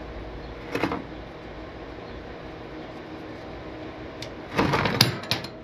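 Handling noises as the engine oil drain plug is spun out by hand over a drain pan: a brief knock about a second in, then a louder clatter of knocks near the end as the plug comes free and the oil lets go.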